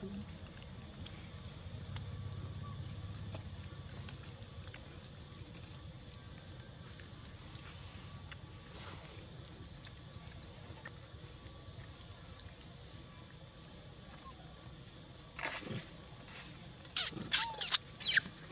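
Steady high drone of insects, with a brief high chirp about six seconds in. Near the end comes a quick run of about five short, shrill macaque calls.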